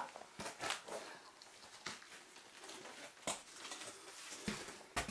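Faint, scattered scrapes and knocks with rustling: a person clambering over sandstone rock in a narrow cave passage, about half a dozen separate short sounds.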